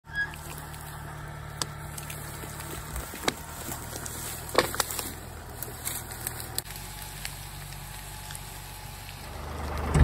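Diesel tractor engine idling low and steady off to one side, growing louder near the end, with scattered sharp clicks and snaps over it.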